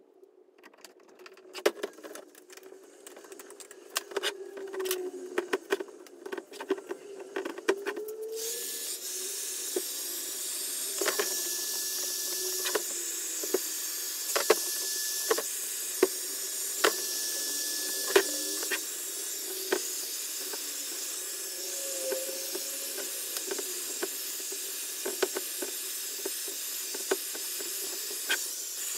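Light clicks and rustles of hands handling the steering wheel. About eight seconds in, a heat gun switches on and blows a steady hiss of hot air over the wheel's leather cover, with small knocks as the wheel is moved.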